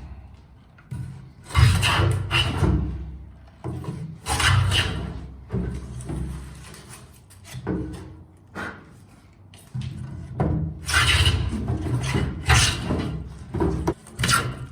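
Hand tool working wood in a series of strokes, each about half a second to a second long, with short pauses between.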